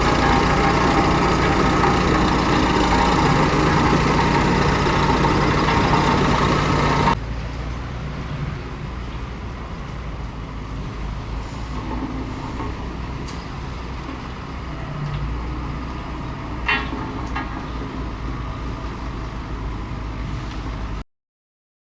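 Diesel engine of a Komatsu D31P bulldozer running hard. About seven seconds in the sound cuts abruptly to a quieter, steady engine drone, with a sharp clack near the end, then stops dead.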